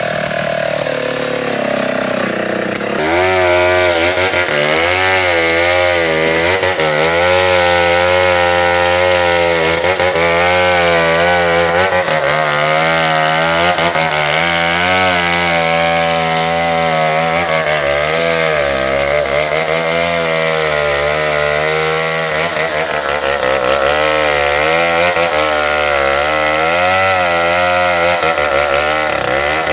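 Tecogold 700 chainsaw cutting bengkirai hardwood. It runs quieter for the first few seconds, opens up to full throttle about three seconds in, and keeps cutting under load, its pitch dipping and rising as the chain bites.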